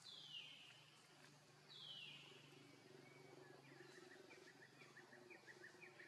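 Faint, high-pitched cries of an infant macaque: two falling squeals, one at the start and one about two seconds in, followed by a quick run of short high chirps, about four a second.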